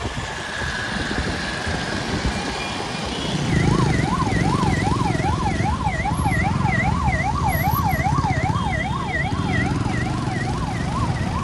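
An electronic siren in a fast rising-and-falling yelp, about two to three sweeps a second, starting about three and a half seconds in, over the low rumble of vehicle engines and traffic.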